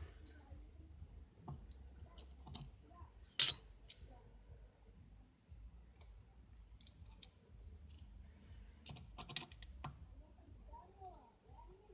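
Homemade lathe running quietly with a faint low hum, and scattered sharp clicks and ticks over it. The loudest click comes about three and a half seconds in, and a cluster of clicks follows near the nine-second mark.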